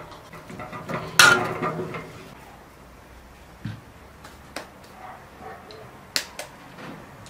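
A metal spoon clanks against an aluminium cooking pot about a second in, with a short ringing tail. Later come a few sharp taps of an egg knocked against the rim of an enamel bowl to crack it.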